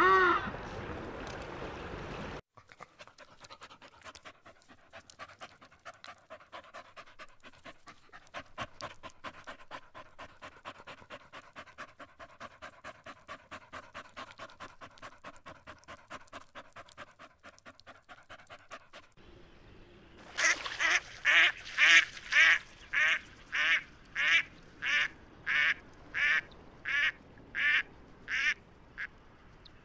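A dog panting quickly and evenly with its tongue out, after a couple of seconds of surf with one short bird call. Near the end Canada geese honk in a steady series, about two honks a second, dying away.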